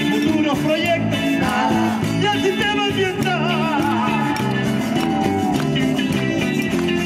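Small live band playing a song with guitars, a wavering lead melody line over steady strummed accompaniment.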